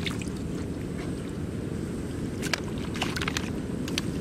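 Steady low rumble of wind on the microphone, with a few short wet clicks and splashes in the second half as a plastic basket and hands work in shallow mud and water.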